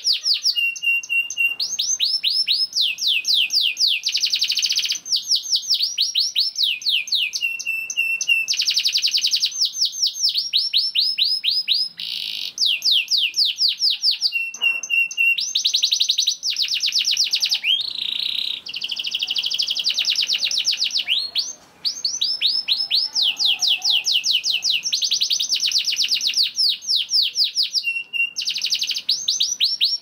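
Domestic canary singing a long, loud song of rapid rolling trills, made of fast sweeping notes, with brief steady whistled notes in between.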